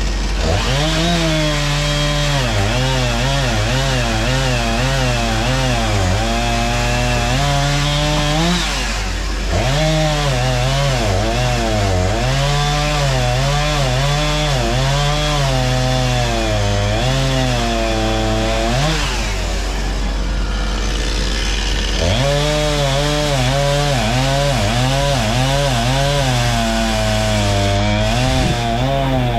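Chainsaw running and cutting wood, its engine speed repeatedly rising and falling as it works through the cut, with short letups about 9 and 20 seconds in.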